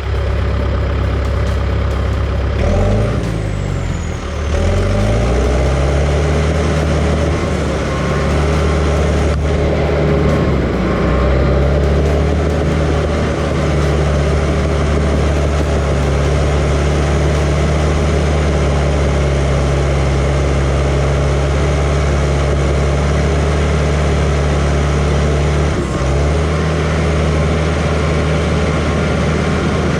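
John Deere 450H crawler dozer's diesel engine running steadily under load while pushing material. Its pitch sags and climbs back a few seconds in, then dips briefly twice more.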